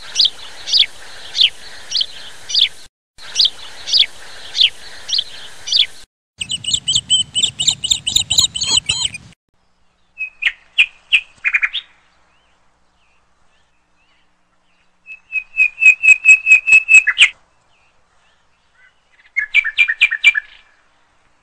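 Bird song and chirping in a string of separate short bouts, each cut off abruptly with silence between: first a steady run of repeated downward-sweeping chirps for about six seconds, then several different bursts of calls and rapid trills.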